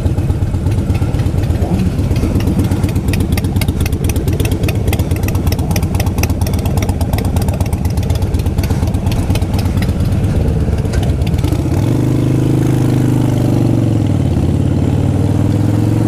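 Harley-Davidson V-twin motorcycle engine idling with a quick, uneven beat while the bike sits in traffic. About twelve seconds in it changes to a steadier, higher note as the bike pulls away.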